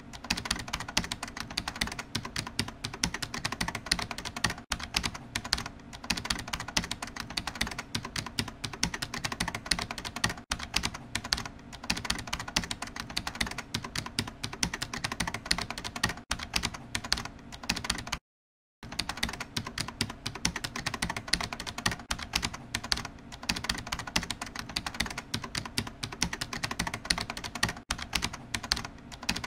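Rapid computer-keyboard typing sound effect, a fast unbroken run of keystroke clicks, with one brief silent break a little past the middle.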